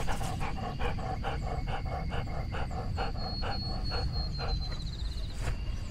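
A dog panting right at the microphone, about four to five quick breaths a second, stopping a little after four seconds in.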